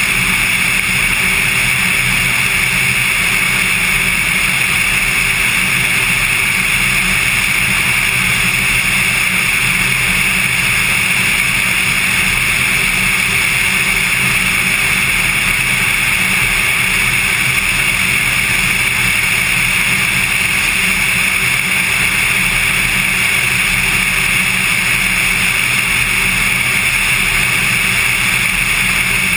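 Cessna 182's piston engine and propeller running at steady cruise power in flight, an unbroken loud drone that does not change in pitch or level.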